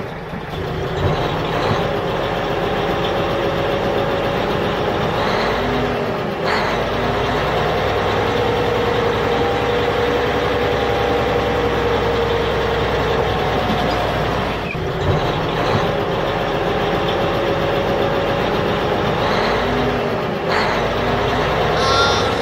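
Truck engine running and revving, its pitch rising and falling slowly, breaking off and starting again about six, fifteen and twenty seconds in.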